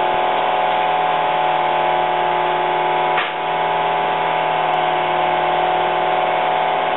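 Dual-action (DA) sander running steadily, sanding cured gel coat on a fiberglass mold, with a brief drop about three seconds in.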